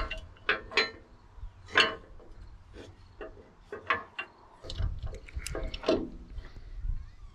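Metal clinks, knocks and rattles as a steel sawmill push handle and its bolts are fitted onto the sawhead frame's back corner bracket, some knocks ringing briefly.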